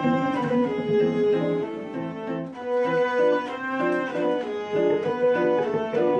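Hurdy-gurdy, zither and electric guitar playing a waltz together: a bowed-sounding hurdy-gurdy melody over a steady drone, with plucked zither and guitar notes.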